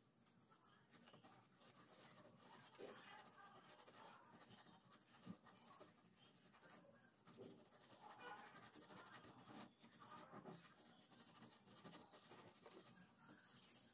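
Faint scratching and rubbing as fingertips scrub a gritty white paste over a brass door knob fitting, with many small gritty clicks.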